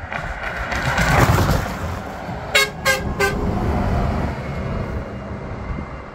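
A car goes by close, then three short, quick horn toots, each a clear pitched blast. A red intercity coach follows, passing close with its engine running and tyres on the road.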